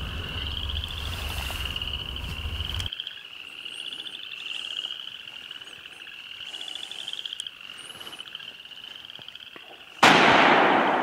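A chorus of frogs trilling steadily, with a low rumble for the first three seconds and a few faint high bird chirps. About ten seconds in, a single loud rifle shot cuts in and its report dies away.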